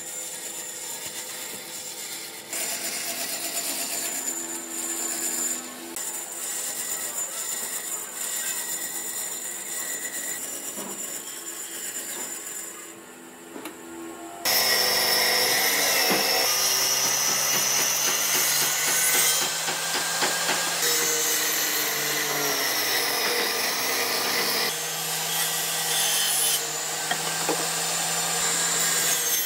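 Bandsaw running and cutting curved ends through pine boards. About halfway through, the sound jumps louder with a steadier machine hum and keeps up to the end.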